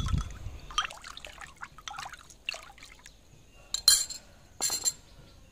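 Water sloshing and trickling in a plastic basin of rice-washing water as a small bowl with a metal spoon is dipped and rinsed in it, pouring dissolved shrimp paste into the water. There are light clinks, and two sharper, louder knocks about four and nearly five seconds in.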